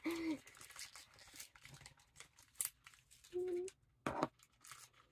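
Plastic and foil toy packaging crinkling and tearing in the hands as a blind-bag capsule is opened, with scattered small clicks and one sharper snap about four seconds in.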